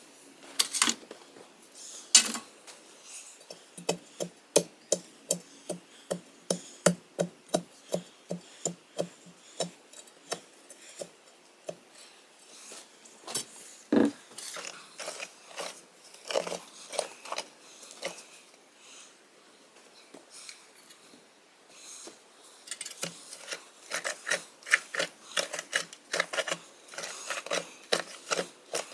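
Hand post-hole auger being turned in gravelly ground: a run of short scraping squeaks, about two a second, as the bit grinds against stones. The squeaks ease off midway and pick up again near the end.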